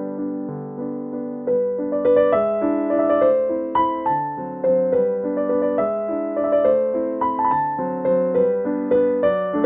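Background piano music: a gentle melody of single notes, each fading after it is struck, over changing chords.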